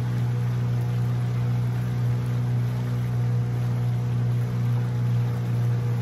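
Boat motor running at a steady speed, a continuous low drone that stays even throughout.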